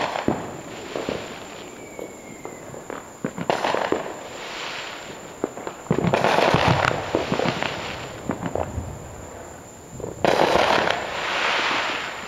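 Fireworks and firecrackers going off repeatedly, with many separate sharp bangs and pops. Two longer, denser stretches of bangs begin about six and ten seconds in.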